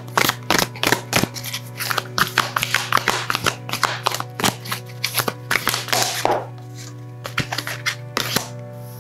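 Tarot cards being shuffled and handled: a quick, irregular run of card flicks and slaps that thins out after about six seconds, over steady background music.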